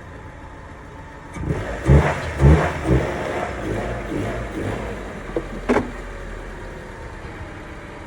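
A car engine revving: a loud burst of revs about two seconds in that slowly dies away over the next several seconds, with a short sharp sound near the end.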